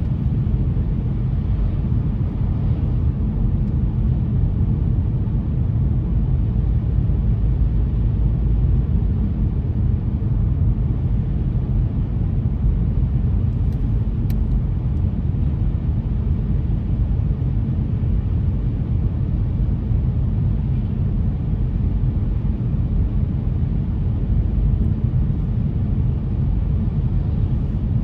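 Steady low rumble of a car driving, engine and tyre noise on the road.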